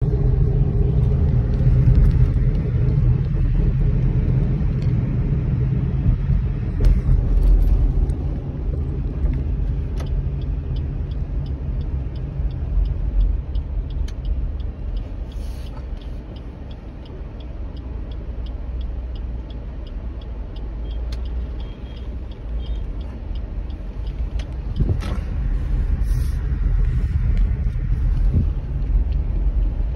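Steady low rumble of a car's engine and tyres heard from inside the cabin while driving, louder over the first several seconds and again near the end. A faint, quick, regular ticking runs through the middle part, with a few scattered clicks.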